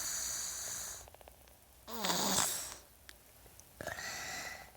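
Snoring: three snoring breaths about two seconds apart, the middle one the loudest.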